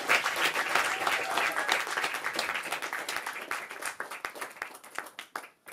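Audience applauding, the clapping fading and thinning out to a few scattered last claps near the end.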